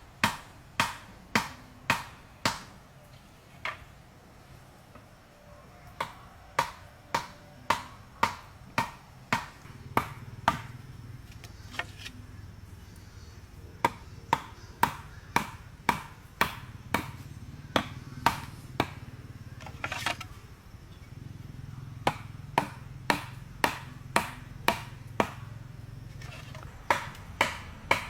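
Rapid sharp strikes of a hand tool, evenly spaced at about three a second, in runs broken by short pauses.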